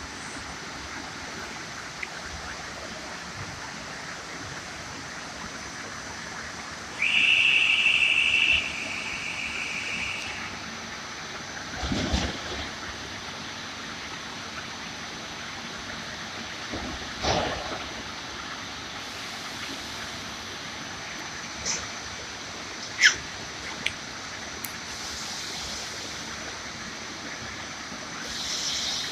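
PROSAW 460 cant-making sawmill machine running with a steady rushing noise. About seven seconds in, a loud high whine lasts a second or two, and a few short knocks follow.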